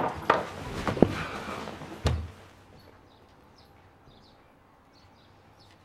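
Hurried rustling of bedding with several sharp knocks and clatters as a man scrambles into bed, ending in a heavy thud about two seconds in. After that the room is quiet, with faint bird chirps.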